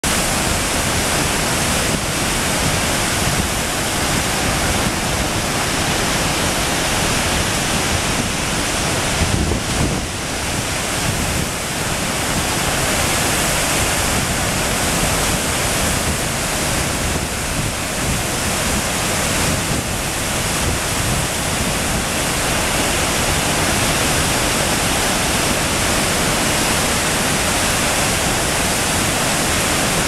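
Gullfoss waterfall: a large volume of water plunging into its gorge, heard close up as a loud, steady rushing roar of white water.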